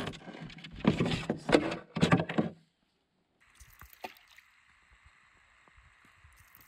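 Canoe paddling: paddle strokes and water sloshing against the hull, which stop abruptly about two and a half seconds in, followed by a faint steady hiss with a few light clicks.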